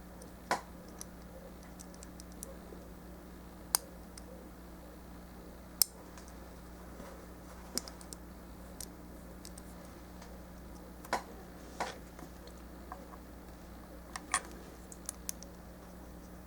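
Plastic parts of a High Grade Raider Gundam model kit being handled and pressed together: a dozen or so irregular, sharp plastic clicks and taps over a steady low hum.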